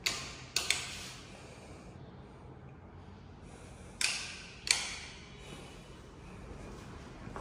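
Footsteps on a hard tiled floor: a few sharp clacks in two groups, the first right at the start and the second about four seconds in, each ringing briefly in a small tiled bathroom.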